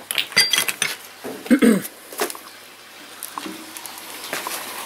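Handling noise of car parts being put down and moved among other parts: a run of light clicks and knocks in the first second, a louder knock about one and a half seconds in, then a few softer clicks before it goes quieter.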